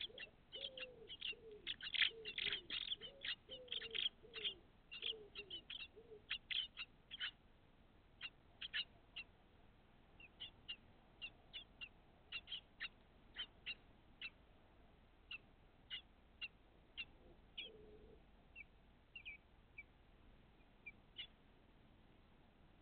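Songbird nestlings begging in the nest: rapid high cheeps, dense at first and thinning to scattered single cheeps after about seven seconds, with some lower, falling notes among them in the first few seconds.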